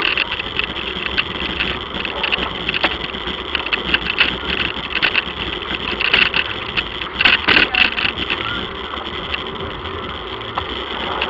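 Bicycle rolling over rough, cracked pavement, picked up by an action camera riding on the bike: steady rolling rumble with frequent rattling clicks and knocks, thickest a little past halfway.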